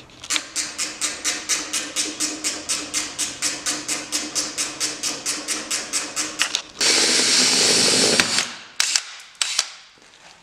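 Hand ratchet wrench clicking rhythmically, about five clicks a second, as bolts on the snowmobile's bulkhead plate are turned. Then a power drill runs for about a second and a half, followed by a few scattered clicks.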